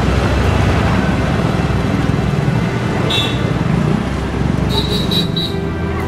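Street traffic: a steady low rumble of vehicle engines, with a few short high-pitched sounds about three seconds in and again near five seconds.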